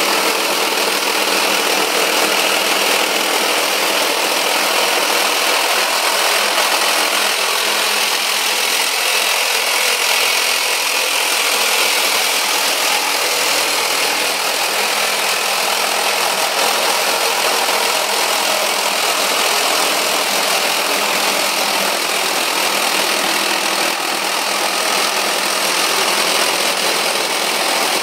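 12-amp Masterforce corded reciprocating saw with a metal-cutting blade, running steadily as it cuts through the ribbed steel sheeting of a pole-barn sliding door.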